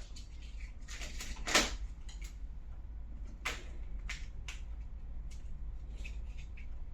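A smartphone being fitted into its protective case and handled, giving a few sharp clicks and taps, the loudest about a second and a half in, then several lighter ones a couple of seconds later.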